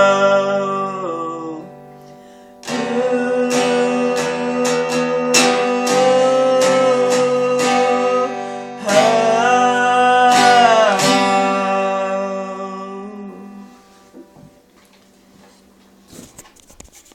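Strummed acoustic guitar with a voice holding long, wavering sung notes; the last chord rings out and fades away about thirteen to fourteen seconds in, followed by a few faint clicks.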